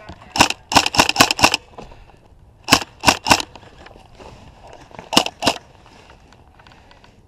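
Tokyo Marui High Cycle AUG airsoft electric gun firing single shots in quick strings: about seven sharp cracks in the first second and a half, then three, then two more about five seconds in.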